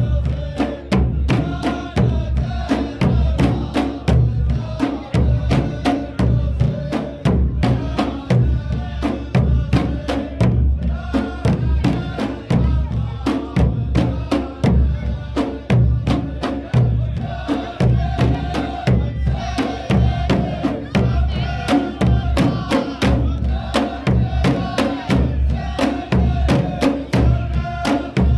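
Saudi 'ardah performance: a group of men chanting in unison over steady, evenly repeated drumbeats.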